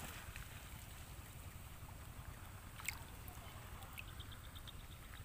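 Faint river water lapping and gurgling close to the microphone, over a steady low rumble on the microphone. A single short splash-like click sounds about three seconds in.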